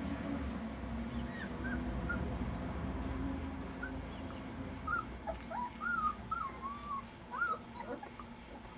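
Four-week-old Caucasian Shepherd puppies whimpering: short, high squeaky whines, a few scattered at first, then a quick run of them from about five seconds in, over a low steady hum.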